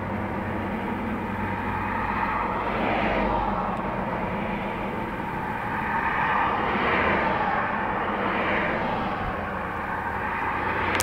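Road traffic passing on a bypass: a steady rush that swells as each vehicle goes by, over a low, steady engine hum.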